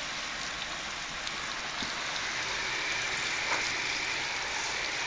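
Water from a hose spray nozzle splashing steadily against a car's door and side panels, rinsing the freshly coated paintwork.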